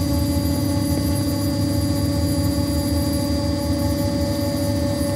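CNC milling machine spindle running at speed, turning a white plastic spool against a fixed cutting tool so the mill works as a lathe, with the tool peeling off plastic swarf. A steady hum with one strong tone over a low rumble.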